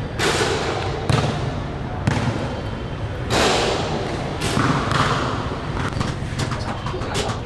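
Basketballs bouncing on a gym court, several thuds about a second apart.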